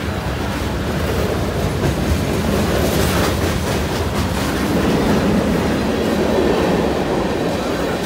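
Freight cars of a long freight train, tank cars and centerbeam lumber flatcars, rolling past steadily: a continuous rumble of steel wheels on rail with a few clicks.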